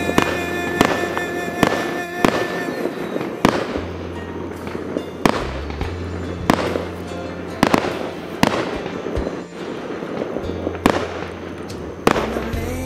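Fireworks display: aerial shells bursting in a run of sharp bangs, roughly one every second or two, with music playing alongside.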